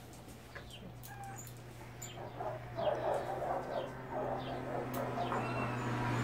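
Several house cats and a dog making short squeaky calls as they crowd round a person's hands, over a steady low hum; the calls bunch up about halfway through.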